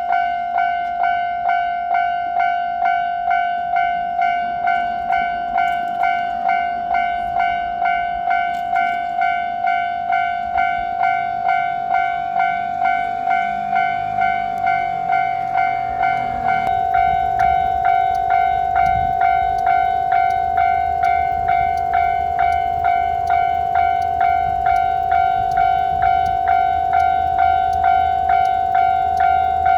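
Japanese railroad crossing bell clanging steadily, about one and a half strikes a second. Partway through, a diesel railcar train is heard coming up and passing the crossing with a low rumble under the bell.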